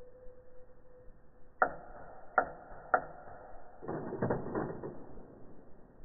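Mechanical clicking: three sharp clicks, each with a brief ringing after it, roughly three-quarters and half a second apart, then a quick rattling run of clicks about a second later. A faint steady tone stops at the first click.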